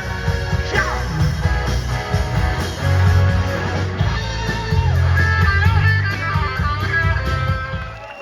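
Live rock band playing loud, full-band rock music, which cuts off right at the end.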